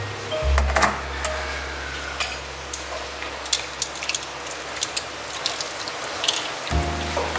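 Chicken feet being stirred with chopsticks in a stainless steel bowl of cold water, with scattered sharp clicks and knocks against the metal.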